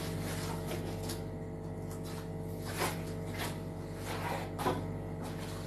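A handful of soft, short knocks and scrapes of a utensil against a cooking pot, spread over several seconds, over a steady low hum.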